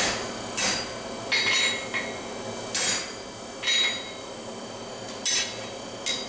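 Hand hammer striking a steel bar on an anvil during forging: about eight separate blows at an uneven pace, each with a short bright metallic ring.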